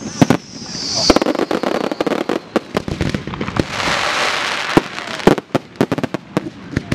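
Professional fireworks going off: a fast, irregular string of sharp bangs from shell bursts and launches. A high whistle falls slightly in pitch over about the first second, and a burst of crackling hiss comes about four seconds in.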